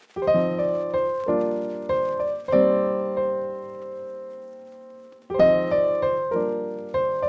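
Background piano music: chords struck and left to fade, with one chord held for nearly three seconds before new chords begin about five seconds in.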